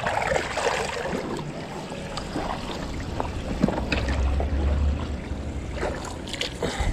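Water splashing and lapping around an inflatable paddle board as riders shift on it and dangle their feet in the water, with scattered knocks of handling on the board and a deep rumble about four seconds in.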